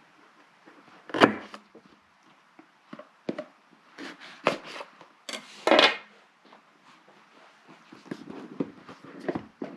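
A small cardboard box being opened and its packaging handled. There is a sharp knock about a second in, then several short scraping and rustling noises, and a run of quick light taps near the end.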